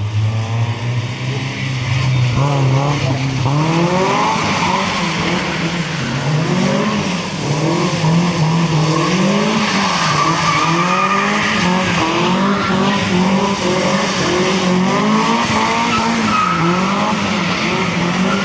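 Car engine revving hard while the car slides through a drift on a wet road. The revs climb over the first few seconds, then rise and fall about once a second, with a steady tire hiss underneath.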